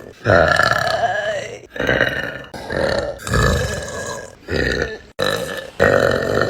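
A woman burping loudly: about six long, pitched burps in quick succession, each breaking off abruptly before the next begins.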